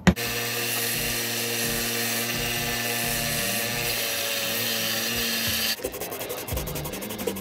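Belt grinder running as a walnut handle is ground against the belt, a steady grinding hiss. About six seconds in it gives way to hand sanding: sandpaper rubbed back and forth on the wooden handle in quick strokes.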